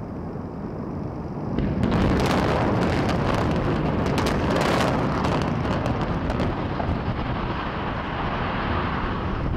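Explosives implosion of a 32-story post-tensioned hotel tower: a deep, continuous rumble of the collapse. It swells about two seconds in, with a dense crackle over it through the middle, then slowly eases off.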